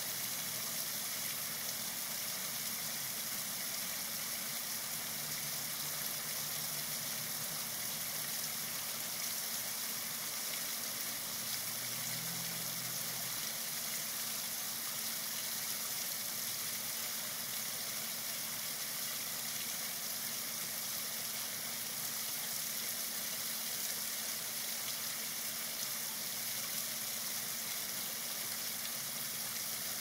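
Small backyard pond waterfall spilling over a stone ledge into the pool: a steady hiss of falling, splashing water, with a faint steady low hum underneath.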